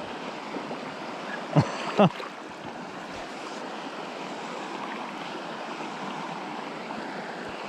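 Shallow river running steadily over stones. About a second and a half in, two brief loud swishes about half a second apart cut through the water sound.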